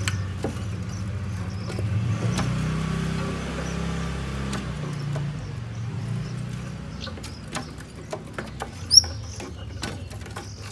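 Nestling birds squeaking faintly while being hand-fed, with scattered clicks and one sharp, short, rising chirp about nine seconds in, over a low steady rumble.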